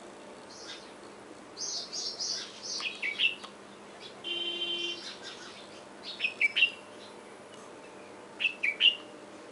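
Several songbirds singing: three short bursts of quick chirping phrases with rapidly falling notes, about two seconds in, past the middle and near the end. A brief buzzing call comes between the first two bursts.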